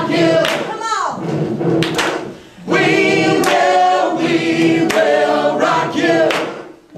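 A group of adult voices singing together in unison, two sung phrases with a short break about two and a half seconds in.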